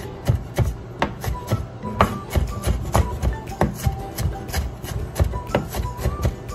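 Cleaver chopping red onion on a wooden cutting board, sharp knife strikes about three a second, over background music.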